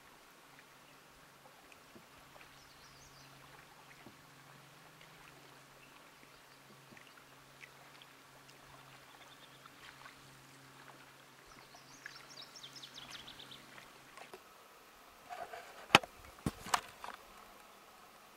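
Quiet lakeside ambience with a low steady hum that stops about four seconds before the end, and two brief high bird trills. A few sharp knocks near the end are the loudest sounds.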